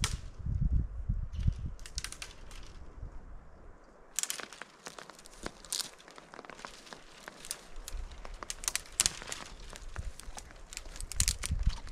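Dry dead pine twigs being snapped off a branch by hand: a run of sharp, irregular cracks and crackles that thickens about four seconds in. Low thumps and rumbling in the first couple of seconds.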